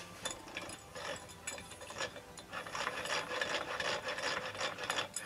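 Rapid, irregular mechanical clicking and rubbing as the lower unit of a small four-stroke outboard motor is handled around its gear case and propeller. The clicks grow denser over the last couple of seconds and stop abruptly.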